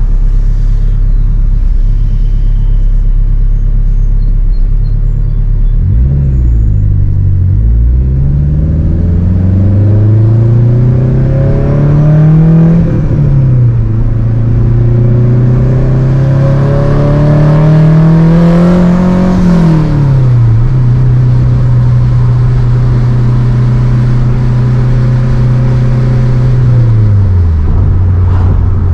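Turbocharged Honda K20 four-cylinder engine of an Acura RSX Type-S under way. It pulls up in revs twice, about six and about sixteen seconds in, and each pull ends in a sudden drop in pitch at a gear change. Between the pulls it holds a steady cruising note, and near the end the revs fall to a lower steady note.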